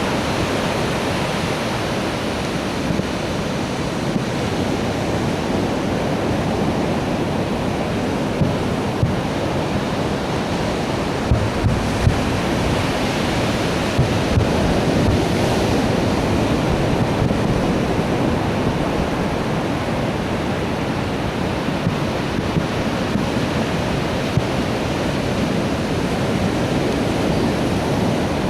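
Steady rushing noise of wind on the microphone and surf, with a few faint thumps around the middle.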